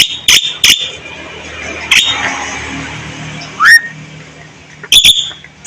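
Javan myna (jalak kebo) singing a varied song: sharp, short, clicking notes with a rising whistle about three and a half seconds in.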